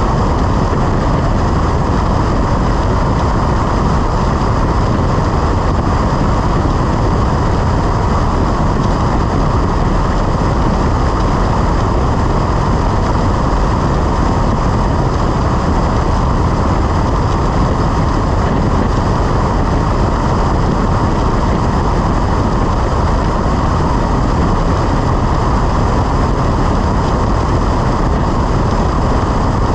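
Cessna 172 in flight: the engine, propeller and rushing air make a loud, steady drone that does not change.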